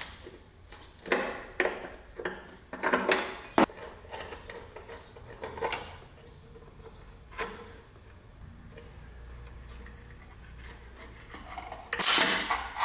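Scattered light clicks and knocks from hands working on a car's front brake line and caliper fitting, with a longer scuffing rustle near the end.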